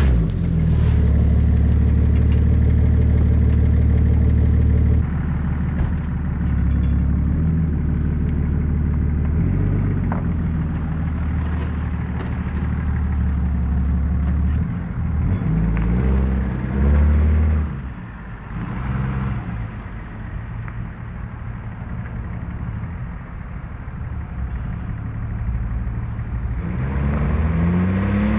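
Straight-piped BMW 730d E38's 3.0-litre inline-six diesel running loud with no silencing. It holds a steady drone, gives a couple of short surges in revs, drops to a lower, quieter note about two-thirds of the way through, then starts climbing in revs again near the end.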